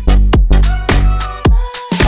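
Upbeat electronic background music with a steady, punchy beat, briefly dropping out near the end.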